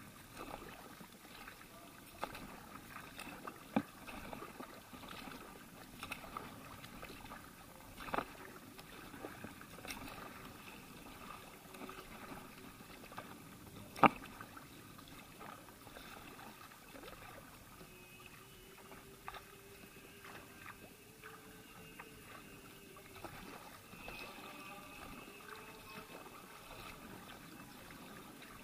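Kayak paddle strokes: the blades dipping into calm water and dripping, with a few sharp knocks, the loudest about fourteen seconds in. A faint steady tone comes in for a few seconds past the middle.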